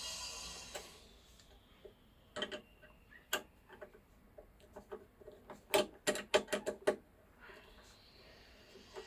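Irregular sharp clicks and taps of small hard parts being handled, with a quick run of about eight clicks around six seconds in. A high hiss fades out in the first second and comes back faintly near the end.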